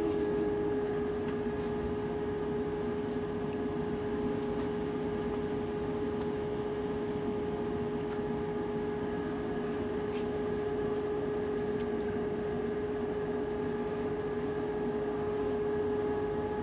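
Strong wind over choppy water, a steady rushing noise, with one unchanging hum tone running through it.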